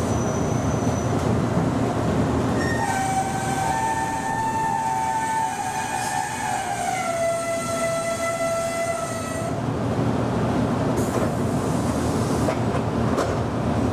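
Meitetsu electric train running, with a steady rumble of wheels and motors. From about three seconds in, a two-tone electronic level-crossing warning bell rings. Its pitch slides down as the train passes the crossing, and it stops about two-thirds of the way through.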